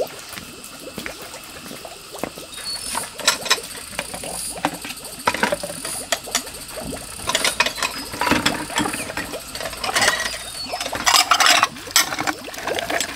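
Ceramic bowls clinking and knocking against each other and a plastic basket and bucket as dishes are washed by hand, with water splashing. A rapid cluster of clinks and splashing comes near the end.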